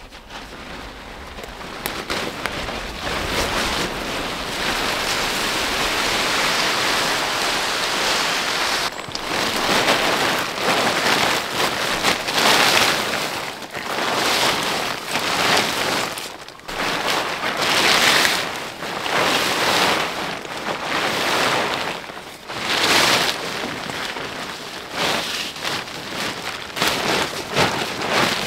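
Plastic tarpaulin rustling and crinkling as it is pulled and handled over a wooden pole frame. It is fairly even at first, then comes in repeated surges every second or two.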